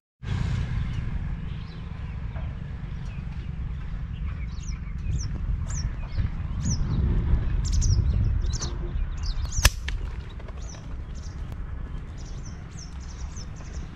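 Wind rumbling on the microphone, with small birds chirping in short, high, quick notes again and again, and a single sharp crack about ten seconds in.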